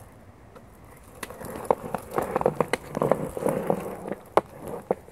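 Skateboard wheels rolling over rough concrete: a gritty rumble with sharp clacks, starting about a second in and fading near the end.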